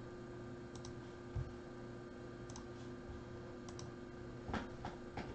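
Faint, scattered clicks of a computer mouse, about half a dozen spread irregularly, over a steady electrical hum.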